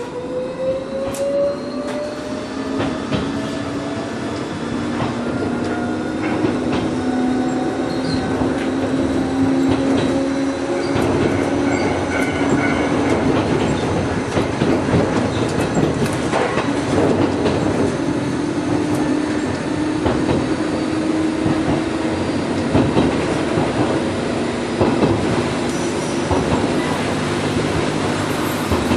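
Gakunan Railway electric train pulling away from a station, heard from inside the cab. Its motors give a whine that rises in pitch over the first ten seconds or so as it gathers speed. It then runs on with the wheels clicking over rail joints and points and a held squeal.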